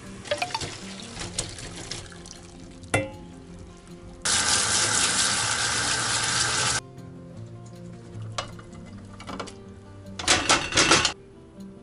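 Kitchen tap running hard onto parboiled chicken pieces in a plastic colander in a steel sink, for about two and a half seconds in the middle, over background music. A sharp knock comes before it, and near the end there is a short burst of clattering as the chicken is tipped from a bowl into a frying pan.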